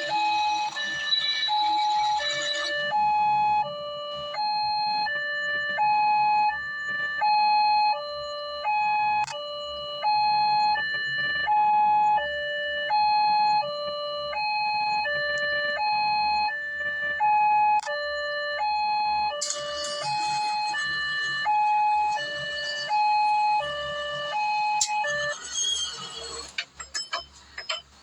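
Small two-tone siren sounding a steady hi-lo pattern, switching between a lower and a higher pitch a little under a second on each. A hiss joins about two-thirds of the way through. The siren stops near the end, followed by a few clicks.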